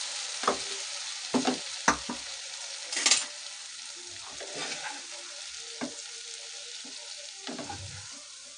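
Chappan kaddu and onion sabzi sizzling in a nonstick kadai just after the gas has been turned off, the sizzle slowly dying down. A wooden spatula scrapes and knocks against the pan several times as the vegetables are stirred and scooped out to serve.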